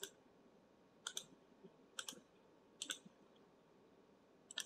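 Faint computer mouse clicks, each a quick pair, about once a second, five times.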